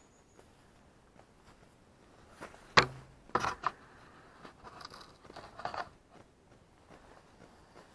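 Handling noise from the camera being picked up and repositioned: a loud sharp click about three seconds in, a quick cluster of clicks and knocks, then softer scraping and rustling.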